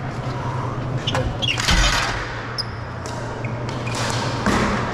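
Ball hockey play: a steady low hum with scattered knocks and clacks of sticks and the plastic ball, the loudest about two seconds in.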